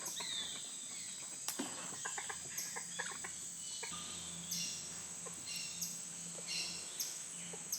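Rainforest ambience: a steady high-pitched insect drone, with short bird chirps scattered through it.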